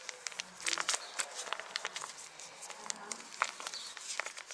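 Foil grease sachet crinkling as it is squeezed into a CV joint, making scattered sharp crackles and clicks, with a cluster about a second in.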